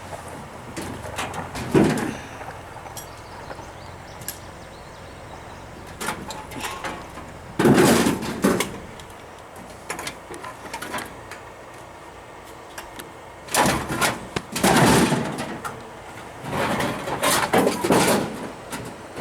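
Junk being tossed out of a truck, banging and clattering as it lands, in four or so separate loud bursts of impacts.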